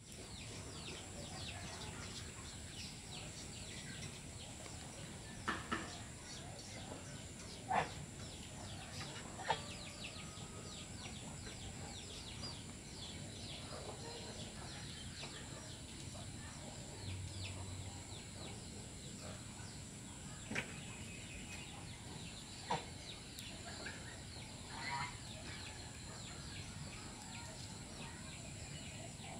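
Domestic geese giving about seven short honks, scattered and spaced apart, over a steady background of many small high chirps.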